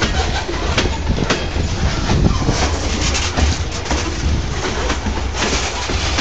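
CSX freight train's covered hopper cars rolling past at close range: a steady rumble of steel wheels on rail, with irregular clacks and clicks as the wheels cross the rail joints.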